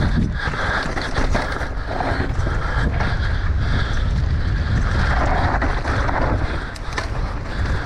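Mountain bike ridden fast down a dry, rocky dirt trail: tyres rolling over loose dirt and stones, with scattered clicks and rattles from the bike. Wind rumbles heavily over the microphone throughout.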